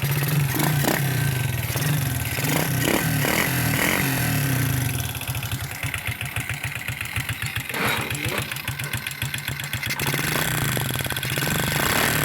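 Freshly overhauled Honda XRM 125 single-cylinder four-stroke engine idling steadily on its first test run, an even rapid exhaust beat.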